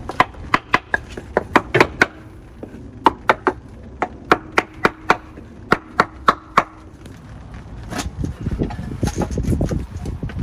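A hammer striking a wooden block held against a Honda B18C's head (valve) cover: about twenty sharp knocks in quick runs, to break the cover loose from its old gasket. Near the end the knocking stops and a rougher handling noise follows as the cover comes free.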